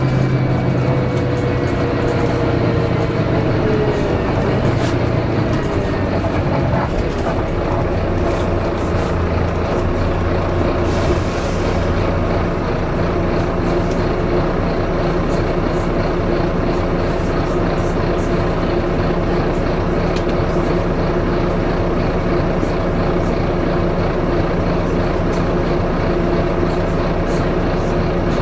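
Volvo B9TL bus heard from inside the passenger cabin: a falling whine from the engine and driveline over the first few seconds as the bus slows to a stop, then the engine idling steadily with a constant hum and whine.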